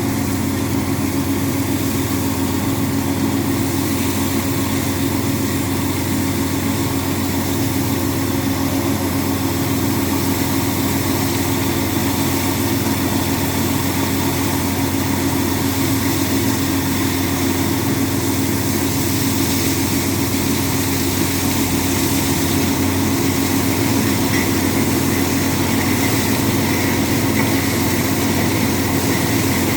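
Borehole drilling rig's engine running steadily under load, a continuous even drone with a strong steady hum.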